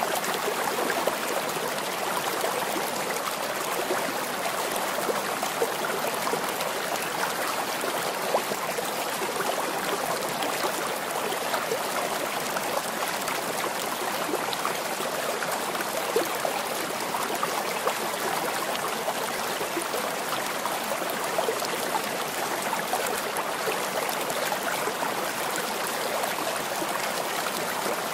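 Steady running water with a fine trickling texture, unchanging throughout.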